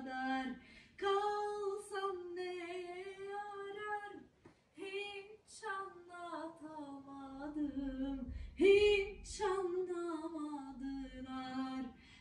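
A woman singing without accompaniment: a slow melody of held notes that slide between pitches, sung in phrases with short breaks between them.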